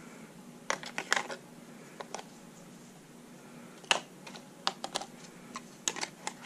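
Batteries being loaded into a hobby RC car's handheld transmitter: a dozen or so irregular, sharp plastic clicks and clacks as the cells are pressed into the battery compartment and the transmitter is handled.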